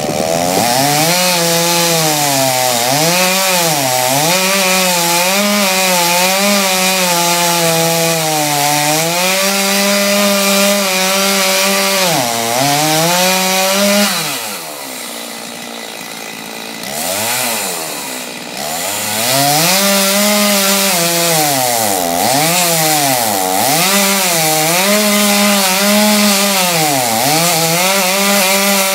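Stihl two-stroke chainsaw cutting through wood, its engine pitch sagging under load and picking back up again and again. About fourteen seconds in the saw drops back for a few seconds, with two short revs, then goes back to cutting.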